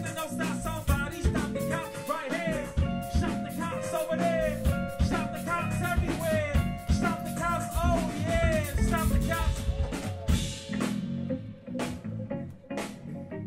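Music: a band track with a drum-kit beat under gliding, wavering melody lines and held notes. It thins out near the end.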